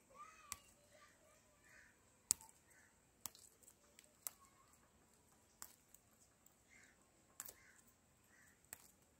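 Quiet, sharp clicks at uneven spacing, about seven of them, as ripe coffee cherries are snapped off their stems by hand. The loudest comes a little over two seconds in.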